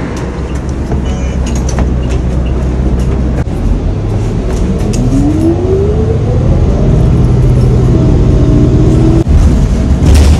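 City bus heard from inside, pulling away: a steady low engine rumble with a whine that rises in pitch as it speeds up about halfway through, then drops and holds at a lower pitch for a second or so.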